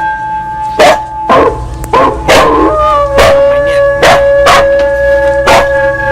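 Temple bell struck repeatedly at uneven intervals, about eight strikes, each leaving a long ringing hum that overlaps the next. A dog barks and yelps between the strikes around the middle.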